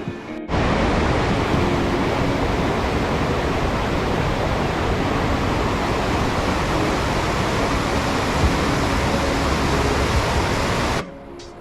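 Loud, steady rushing of water, like a mountain torrent or waterfall. It starts abruptly about half a second in and cuts off suddenly near the end.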